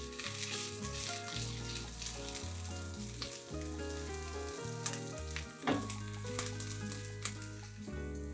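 Sliced onions and green chili peppers sizzling as they fry in oil in a nonstick pan, stirred with a spatula that scrapes and clicks against the pan now and then.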